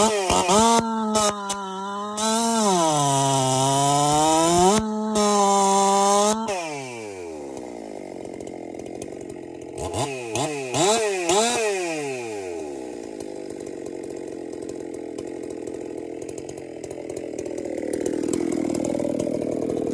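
Husqvarna 372 XP two-stroke chainsaw being revved as it is dialled in: quick throttle blips, then held at high revs for several seconds with a brief sag in pitch, dropping to idle about six seconds in. Two more short blips come around ten seconds in, then it idles, the idle speed creeping up near the end.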